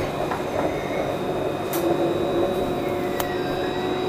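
Interior running noise of a Luas light-rail tram in motion: a steady rumble with a steady electric whine, and two sharp clicks about two and three seconds in.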